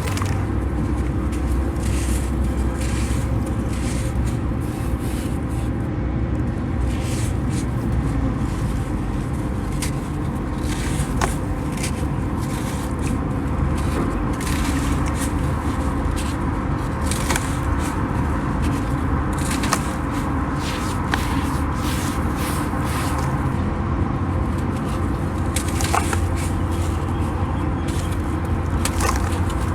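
Crispy sand clumps being smashed and crumbled, with many small crackles and scrapes over a steady low rumble.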